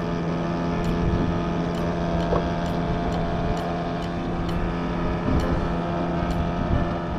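Boat engine running steadily, a constant, unchanging hum.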